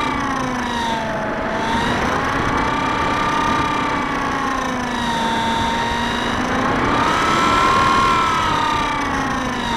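Bixler 2 RC foam plane's electric pusher motor and propeller whining in flight, heard from the onboard camera, with wind rushing over the microphone. The pitch rises and falls slowly, about every three to four seconds.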